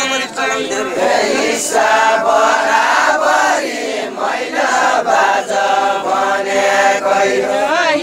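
A group of men singing a Deuda folk song together, holding long drawn-out notes.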